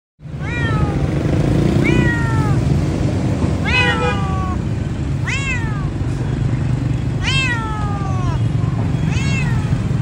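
A cat meowing over and over: about six long calls, each falling in pitch, over a steady low rumble.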